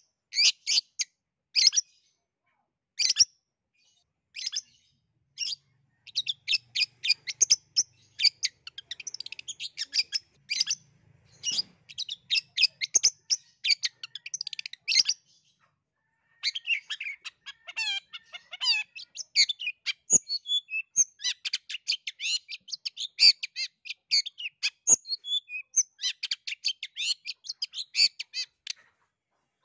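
Long-tailed shrike singing a rapid, varied chattering song of short, sharp high notes and quick trills. There are a few short pauses in the first several seconds and one about halfway.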